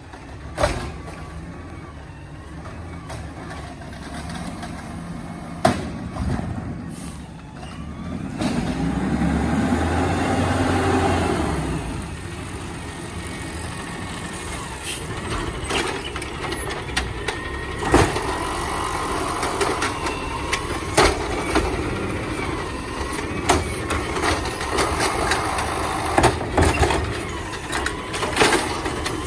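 Peterbilt 320 garbage truck with an Amrep HX-450 automated side-loader arm, running as it works the arm and pulls forward. The engine swells about a third of the way in, and sharp metal clanks come every few seconds.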